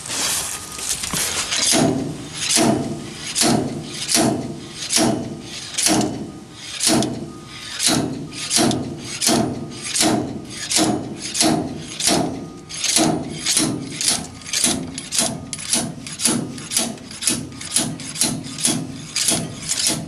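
Slide hammer on a bearing puller being driven repeatedly against its stop to pull an old axle bearing out of a GM 10-bolt rear axle housing. The sharp metal blows come a little over one a second and quicken in the second half.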